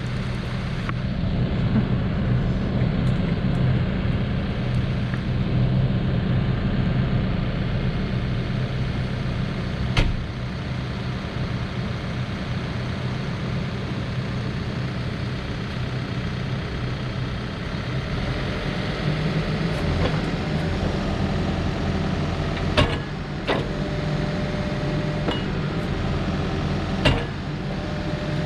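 Case 580 Super N loader backhoe's diesel engine running steadily, with a few sharp clanks as the machine is worked. From about twenty seconds in, a higher steady whine joins the engine.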